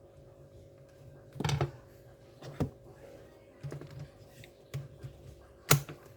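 A handful of separate sharp clicks and light knocks, about five in all, with the loudest one near the end, over a faint steady hum.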